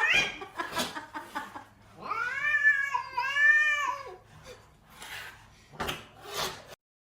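A cat yowling: two long, drawn-out meows back to back about two seconds in, after a short call at the very start, with a few short noisy sounds near the end.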